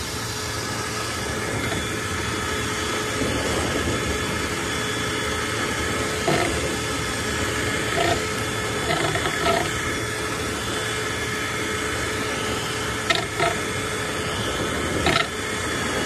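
Power drill spinning a flexible rotary dryer-vent brush rod inside the vent duct, a steady whir with the rod rattling in the pipe, and a few short knocks as the brush strikes the duct walls.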